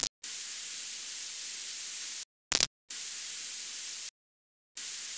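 Static-like hiss sound effect for a logo animation, switched on and off abruptly: a stretch of about two seconds, a brief blip, about a second more, and a short burst near the end, with dead silence between.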